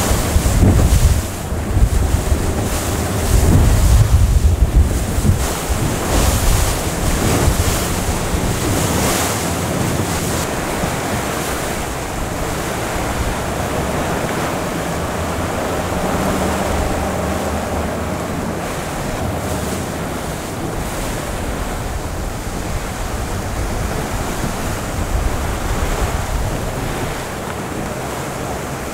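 Wind buffeting the microphone over the rush of sea water around a moving sailing boat. The buffeting is heaviest in the first few seconds, then settles into a steady rush of wind and water.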